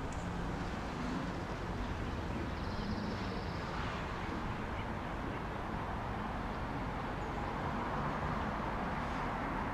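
Outdoor ambience at a hiking trail entrance parking lot: a steady low rumble of distant traffic under an even wash of open-air noise, with a faint high chirring about three seconds in.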